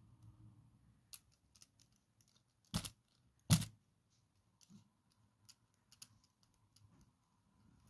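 Light clicks and rattles of LEGO Technic plastic parts as a model car is handled, with two louder knocks about three and three and a half seconds in.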